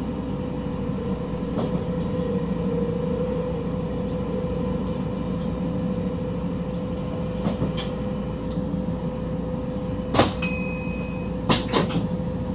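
Stopping train heard from the driver's cab while running: a steady rumble with a constant mid-pitched whine. In the last few seconds there are a few sharp clicks and knocks, the loudest about ten seconds in.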